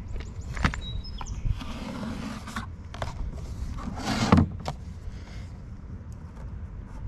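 Handling noises of an aluminum boat-mounting track and its cardboard box being moved and set on the boat's gunwale: scattered light knocks and clicks, a rustling scrape about a second and a half in, and a louder brief scrape just after four seconds in.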